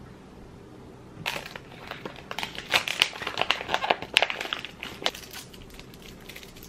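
Plastic packaging of imitation crab sticks crinkling and crackling as it is handled and opened, in a dense run of crackles that starts about a second in and stops about five seconds in.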